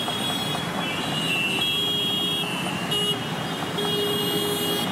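Road traffic noise with vehicle horns honking in held toots of about half a second to a second, one after another and sometimes overlapping.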